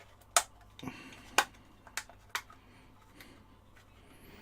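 Sharp clicks and knocks of the kit's case parts being pressed and fitted together, five in the first two and a half seconds.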